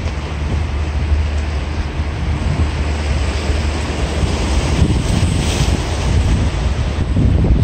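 Wind buffeting the microphone in a steady low rumble, over the hiss of surf washing on rocks.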